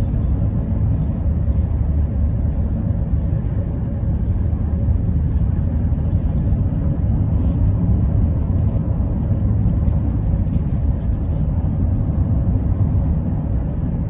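Steady low rumble of a car driving at road speed, heard from inside the cabin: engine and tyre noise with no changes.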